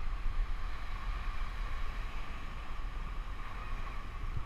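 Wind buffeting the microphone as a steady low rumble, with surf washing on the shore behind it.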